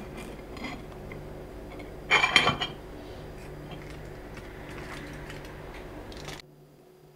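Tableware clattering: about two seconds in, a brief cluster of clinks and knocks of a ceramic plate against a fork and a wooden tray. Around it are faint light ticks and rustles, and a low steady hum that cuts off abruptly near the end.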